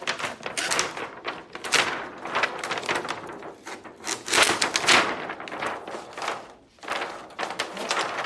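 Thin plastic backlight reflector sheet of an LCD TV being lifted and folded back by hand, crinkling and rustling in repeated irregular bursts.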